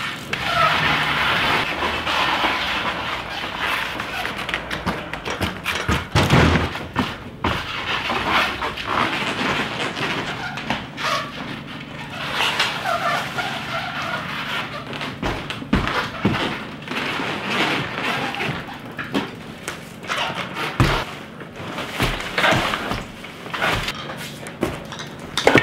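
A bicycle ridden around a room over a hard floor scattered with packing cardboard, with many short thumps and knocks.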